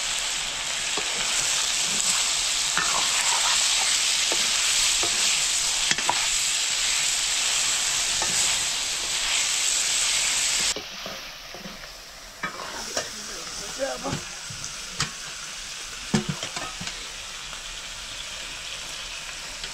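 Pieces of toad meat sizzling as they fry in a wok, stirred with a metal ladle. About ten seconds in, the sizzle drops off abruptly to a quieter stretch with scattered clicks and knocks.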